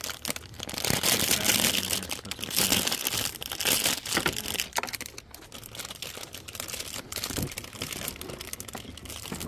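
Plastic rustling and crinkling with small clicks and knocks as toy parts are handled, louder in the first half and quieter after about five seconds.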